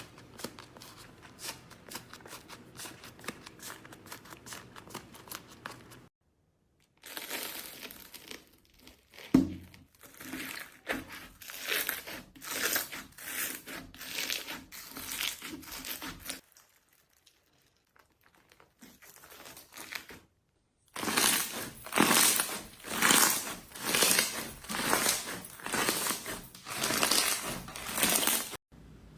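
Slime being pressed, squeezed and stretched by hand, crackling and crinkling. It comes in several short takes split by brief silences: first a fine rapid ticking, then repeated crackly squeezes about once a second, louder near the end.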